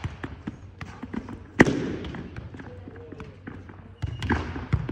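Football rally in a teqball game: repeated sharp knocks of the ball struck and bouncing on the curved teqball table, ringing in a large echoing sports hall. The loudest hit comes about a second and a half in. Spectators' voices can be heard in the background.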